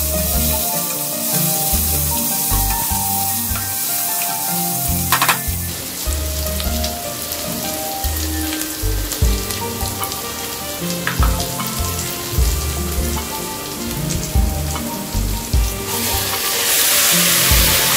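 Onions, green chillies and spices sizzling in hot ghee in a pressure cooker, stirred with a spatula. Near the end the sizzle briefly turns into a louder hiss as washed rice and moong dal are poured into the hot fat.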